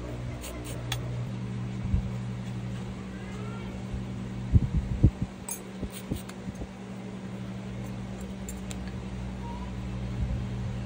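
A steady low mechanical hum, like a running fan, with a cluster of soft bumps about four and a half to five seconds in and a few light clicks scattered through.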